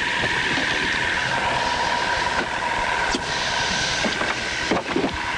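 Boat engine running with a steady hum and a constant hiss, as heard on an old VHS recording.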